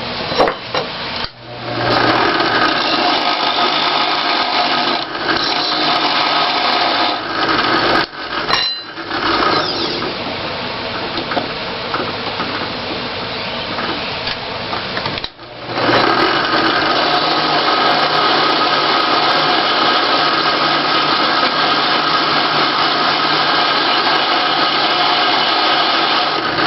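Drill press running with a short metal rod spinning in its chuck while its end is ground down to a taper, a steady grinding whirr. It stops briefly about a second in, again around 8 seconds, and again around 15 seconds.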